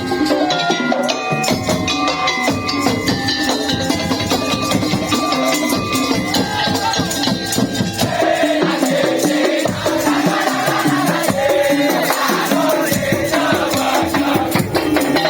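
Band music with steady percussion and a shaker rattle, with held notes above; a wavering melody line comes in about eight seconds in.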